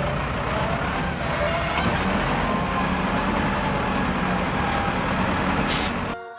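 Heavy vehicle engine sound, a steady rumbling run, with a short hiss near the end.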